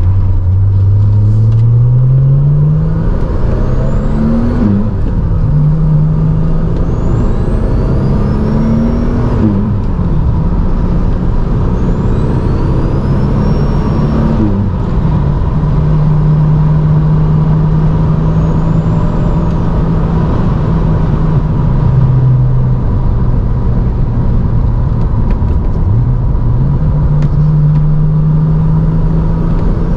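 The 1978 Alpina B7 Turbo's turbocharged straight-six accelerating up through the gears. Its pitch climbs and drops sharply at shifts about five, ten and fifteen seconds in, with a faint high whistle rising during each pull. It then settles to a steady cruise, dips briefly past twenty seconds, and pulls again near the end.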